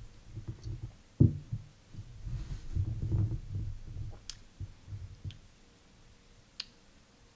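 A beer glass set down on a table with a dull knock about a second in, among low thumps of a person shifting in his seat. Two sharp clicks follow later.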